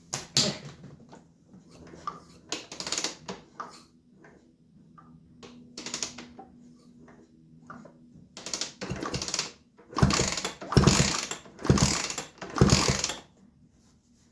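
Mechanical clicks and clatter of hand tools and engine parts being worked on a KTM 125 SX two-stroke top end. Near the end come four loud strokes about a second apart.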